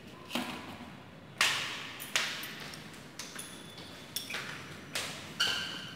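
A series of about six sharp knocks and clinks, several trailing a brief ringing tone, the loudest two near the start.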